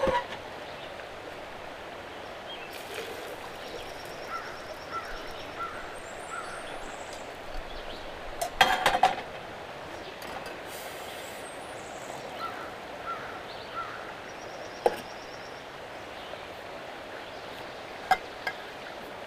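Steady rushing of a nearby stream, with a bird calling in short repeated chirps twice over it. Stainless steel cookware is handled at the camp stove: a few sharp clinks, and a louder clatter about halfway through.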